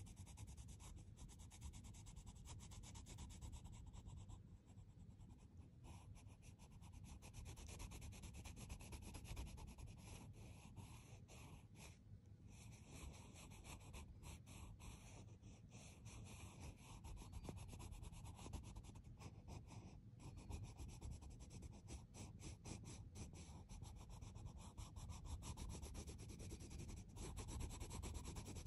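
Coloured pencil shading on paper: faint, rapid scratchy strokes going on throughout.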